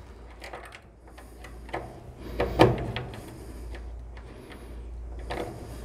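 Spade wire connectors being pushed back onto the terminals of a dryer thermistor on a plastic blower housing: a few scattered small clicks and scrapes, the loudest about two and a half seconds in, over a faint low hum.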